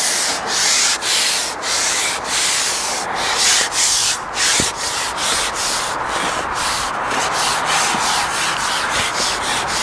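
Carbon fishing pole being shipped back, a rasping slide as it is pulled back in repeated hand-over-hand strokes, about two pulls a second and a little quicker near the end.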